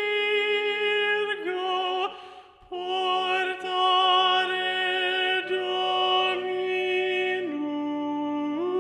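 Choral part-learning track: slow, sustained chords in several voice parts, with the second alto line mixed louder than the others. The chord moves in slow steps, with a brief break for breath about two seconds in.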